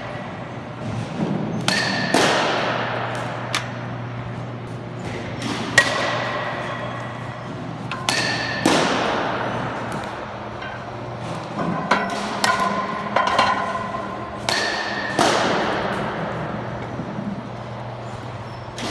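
Baseball batting practice: a bat hitting pitched balls, several sharp cracks with a ringing, echoing tail, the biggest about every six and a half seconds. A steady low hum runs underneath.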